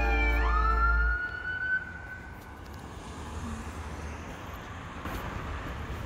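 Background music that cuts off about a second in, overlapped by a siren tone that rises in pitch and then fades out. After that comes steady street traffic noise.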